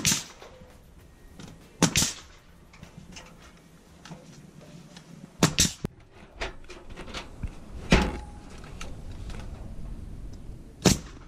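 A nail gun fires once as a PVC trim strip is nailed to the siding, followed by several more sharp knocks and clicks, a pair of them close together about halfway through.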